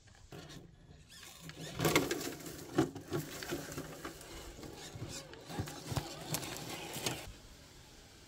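Traxxas TRX-4 Bronco RC crawler's electric motor and geared drivetrain whining as it crawls over rock, with irregular knocks and scrapes of tyres and chassis on the stone. It cuts off suddenly near the end.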